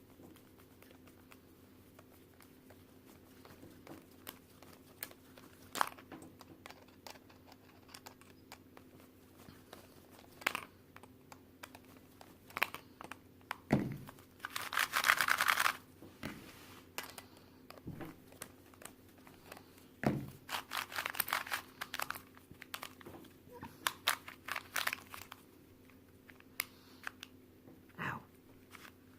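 Plastic pieces of a Qiyi stickerless Square-1 puzzle cube clicking and knocking as it is reassembled by hand. A brief rustle comes about halfway through, followed by a run of quick clicks.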